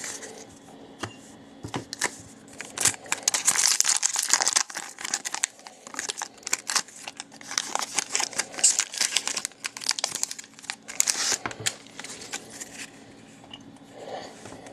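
Foil trading-card pack wrapper being torn open and crinkled by hand, in two spells of crackling, about three seconds in and again about eight seconds in.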